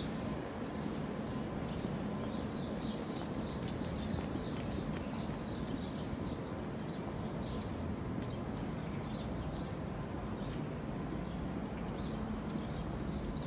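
City street ambience: a steady low hum with many short, high ticks a few times a second.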